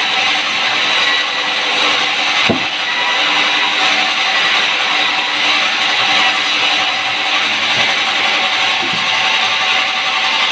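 Sawmill saw cutting wood, a steady loud rushing noise with no break, with a knock about two and a half seconds in and another near the end.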